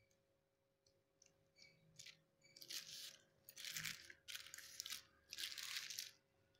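Thin polythene sheet crinkling as it is gripped and shifted on the counter, in four short rustling bursts in the second half.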